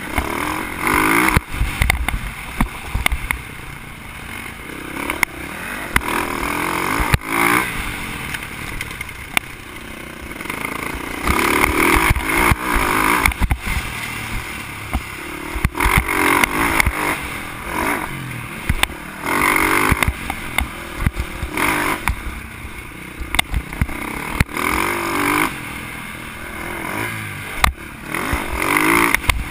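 Dirt bike engine revving up and easing off again and again as the rider works the throttle through the gears, heard from the rider's helmet. Short sharp knocks and clatter come from the bike going over bumps.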